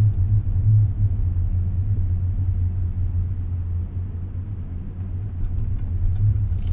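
Ford F-150 making a low, steady humming drone inside the cab while driving, wavering slightly in strength. The owner says this hum comes on in cold weather, about 10 degrees and under, and stops when the truck turns left.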